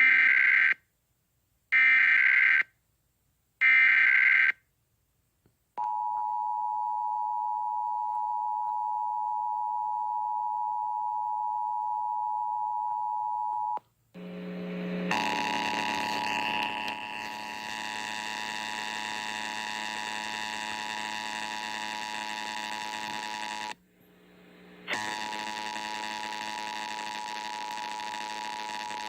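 Emergency Alert System test tones: three short warbling SAME data bursts, then the steady two-tone EAS attention signal for about eight seconds. About 14 seconds in, a harsher, buzzier steady tone with many overtones takes over, dropping out briefly about 24 seconds in.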